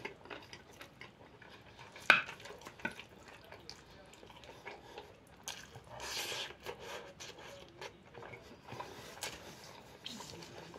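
A person eating close to the microphone: wet chewing, mouth and lip sounds, with a sharp click about two seconds in and light clinks of a spoon on a plate.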